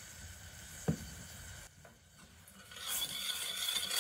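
Sticky BBQ sauce in a stainless saucepan on a gas hob starting to sizzle, with a spoon stirring it. A faint knock comes about a second in, and the hiss of the sizzle rises from about three seconds in.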